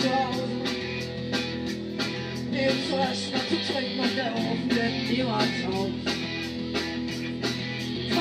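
Live rock band playing: a singer's voice over electric guitar and bass guitar, with drums keeping a steady beat.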